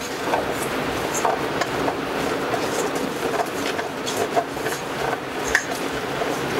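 Wooden spatula stirring and scraping a wet spice paste around a non-stick frying pan: a steady scrape broken by frequent small knocks against the pan.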